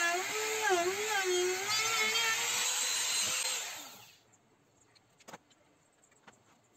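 Compact trim router running at high speed and cutting the groove near the edge of a wooden cutting board, its whine dipping in pitch and recovering as the bit loads in the wood. About three and a half seconds in it winds down and stops, leaving only a few faint clicks.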